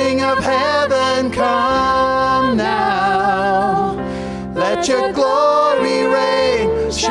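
Live church worship band: singers over acoustic guitar and piano, playing a praise song.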